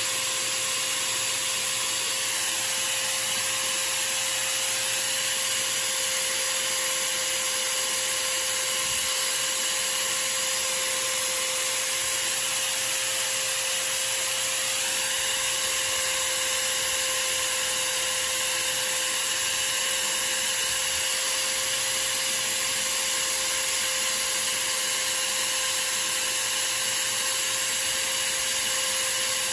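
Small lathe running steadily at constant speed: an even motor whine with a strong hiss, with no change in speed throughout.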